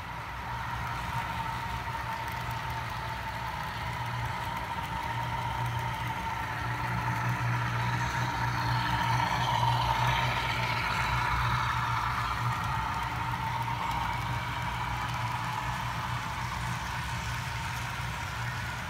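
HO scale model freight train running past on the track, led by a CN Dash 8 model diesel locomotive: a steady hum and rumble that swells to its loudest about halfway through as the locomotive passes closest, then eases off.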